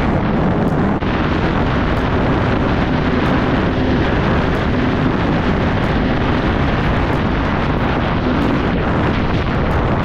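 Jet ski running steadily at speed, its engine a low hum under heavy wind noise on the microphone.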